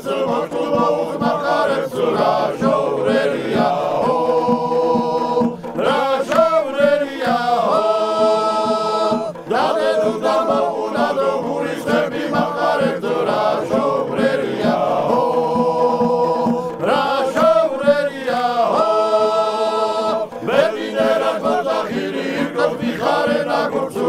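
Male folk choir singing a Georgian polyphonic song in long held chords, with accordion accompaniment.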